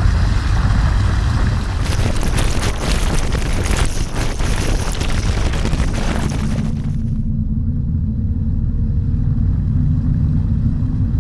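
Underwater hydrophone recording: a heavy rumble with dense crackling and fizzing for the first six seconds or so. It then gives way to a low, steady engine drone like a boat motor heard underwater.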